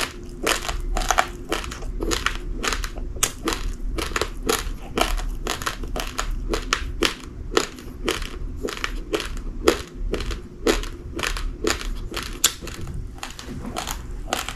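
Uncooked rice grains being chewed: quick, steady crunching, about three crunches a second.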